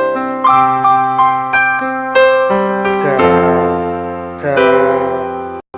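Piano playing a slow melody of single struck notes that ring and fade, then fuller held chords from about halfway through. The sound cuts out for an instant near the end.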